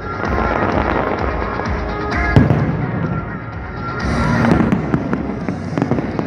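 Fireworks exploding in quick succession, dense crackling with repeated bangs, the sharpest bang about two and a half seconds in, while music plays underneath.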